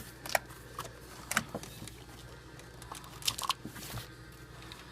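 Spark plug wire boot being handled and pushed onto its terminal: a few sharp plastic clicks and rubbery snaps, the loudest about a third of a second in, near a second and a half in, and a quick cluster a little past three seconds.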